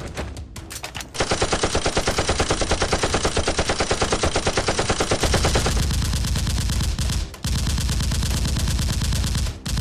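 Rapid automatic gunfire, about ten shots a second, starting about a second in. After roughly six seconds it gives way to heavier, lower-pitched firing with a brief break.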